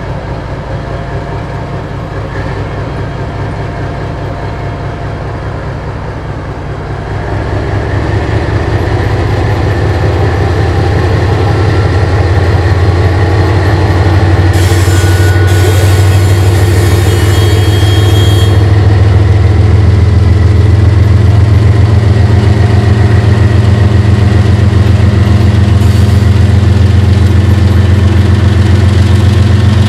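A GE ES44AC diesel locomotive's 12-cylinder engine throttles up under load as it slowly pulls its train. The engine grows louder about seven seconds in and then holds at a heavy, steady level. About halfway through comes a few-second hiss with a faint high squeal.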